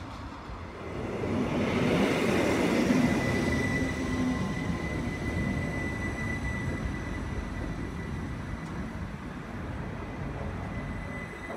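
Red Rhaetian Railway passenger train rolling past close by, its wheels rumbling on the track, with a steady high-pitched whine. The rumble swells about a second in and is loudest a couple of seconds later.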